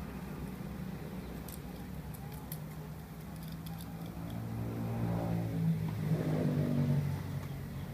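Engine of a passing motor vehicle, growing louder from about a third of the way in, shifting in pitch at its loudest, then fading near the end. A few light clicks come early on, over a steady low hum.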